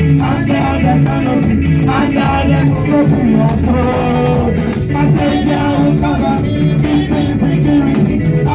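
Live gospel praise music: a woman singing into a microphone over keyboard and drums, with a steady shaker-like rattle keeping the beat.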